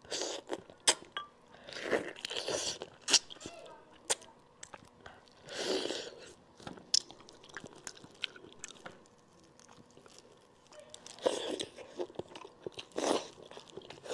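Close-miked eating sounds: biting and chewing pieces of braised monkfish, with many sharp wet smacks and crunches and a few louder bursts of mouth noise.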